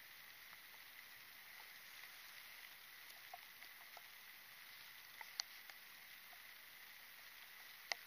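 Near silence: a faint steady hiss with a thin high tone running through it, and a few small ticks, two of them a little past five seconds and one near the end.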